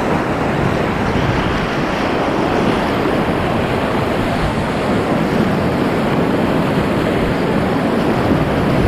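Whitewater rapid rushing and churning around a kayak, a loud, steady wash of water noise close to the microphone.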